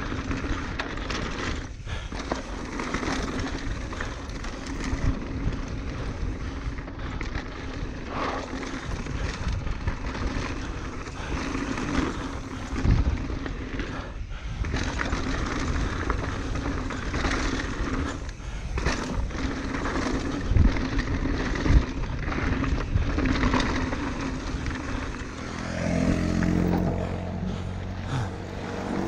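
Norco Range enduro mountain bike ridden fast down a dirt trail: tyres rolling over dirt and rocks with wind rushing over the microphone, broken by several hard thumps from bumps. A pitched buzz comes in for a couple of seconds near the end.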